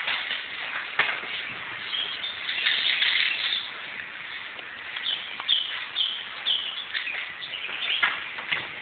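Aerosol spray-paint can hissing in bursts as lines are sprayed onto a wall, with a run of short bird chirps about five seconds in.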